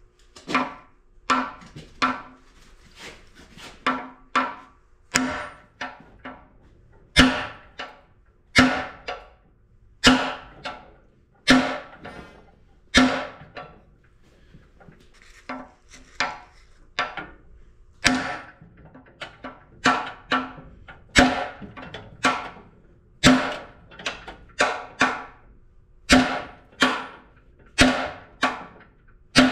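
Hammer blows on a cam bearing driver tool, driving a cam bearing through the cast iron engine block of a CAT D4D bulldozer. The strikes come about once a second, some in quick pairs, each with a short metallic ring.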